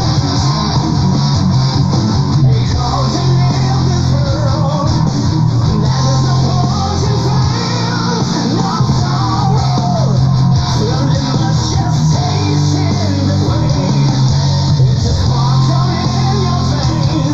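Power prog metal recording with distorted guitars, bass and drums and a singing voice, at a steady loudness throughout.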